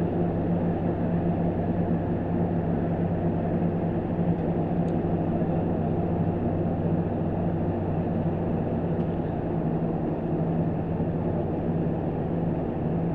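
Stopped NJ Transit diesel commuter train idling at the platform: a steady, unchanging low engine hum.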